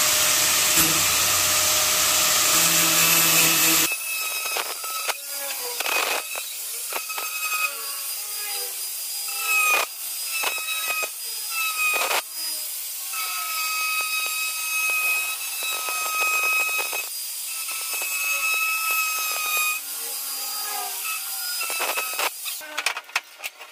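Angle grinder with a diamond blade cutting into a fiber-cement (Hardiflex) ceiling board. About four seconds in, the sound abruptly turns thinner and quieter, leaving a high whine in stretches of a few seconds and short scraping strokes.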